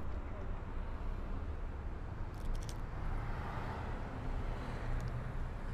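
Lamborghini Urus power tailgate unlatching with a sharp click, then rising open over a steady low rumble.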